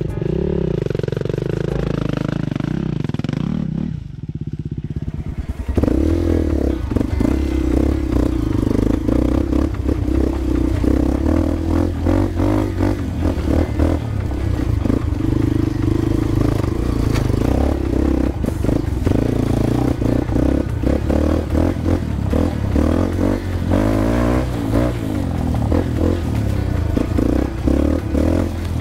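Dirt bike engine running under load as the bike is ridden over a rough dirt track, heard from on the bike, with clattering from the bumpy ground. For the first few seconds background music plays instead, cutting to the engine about six seconds in.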